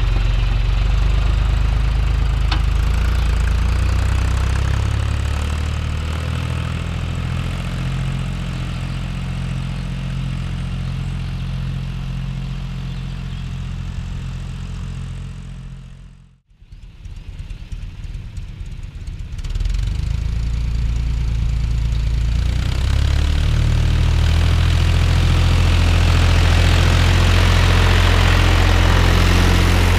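Three-cylinder diesel tractor engine running steadily while ploughing. It fades out to near silence about halfway through, then fades back in louder about four seconds later, as an edit joins two shots.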